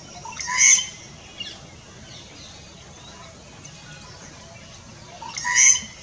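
Rufous treepie giving two loud calls, each about half a second long, one about half a second in and one near the end, with faint chirps of other birds between.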